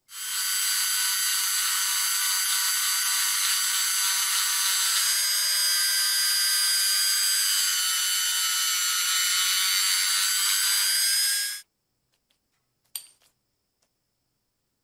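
Hand-held rotary tool spinning a small sanding drum against the metal of a lighter body, a steady high whine. The whine cuts off suddenly about three-quarters of the way through, and a faint click follows a second later.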